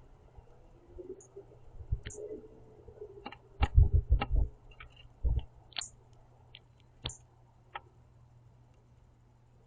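Female northern cardinal giving quiet, short, high chip notes at irregular intervals, with a few low thumps among them.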